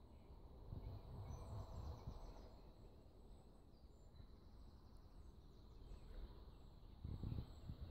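Faint outdoor ambience: a low rumble underneath, with faint, high, thin chirps of small birds now and then. The low rumble grows louder near the end.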